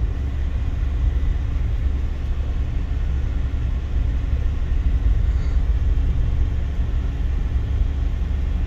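A 3.2-tonne camper van driving a mountain pass road: a steady low rumble of engine and road noise.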